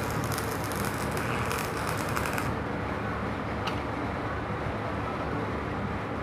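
Stick-welding arc crackling and sizzling as a vertical weld is run, cutting off abruptly about two and a half seconds in. A steady low hum runs underneath, with a single click shortly after the arc stops.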